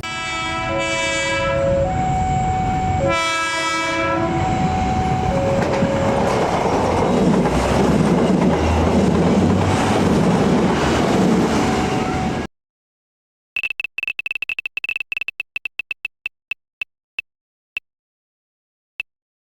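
Train horn sounding twice over the running noise of a train on the rails, which cuts off suddenly about twelve seconds in. Then a spinning prize wheel clicks, the clicks slowing and spacing out until it stops.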